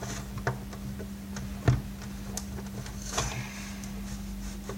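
Scattered clicks and light knocks of a screwdriver working a screw out of a hard plastic vacuum cleaner housing, over a steady low hum.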